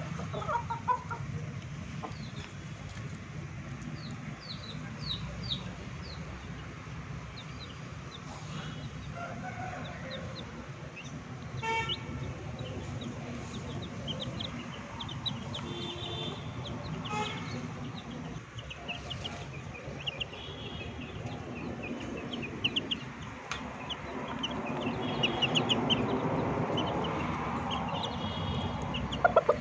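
Chicks cheeping in scattered runs of short, high peeps, with chickens clucking.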